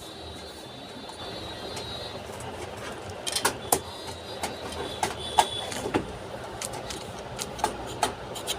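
Scattered clicks and knocks of PC parts being handled and fitted into a computer cabinet, starting about three seconds in, over steady background noise. A faint high whine is heard for the first two seconds.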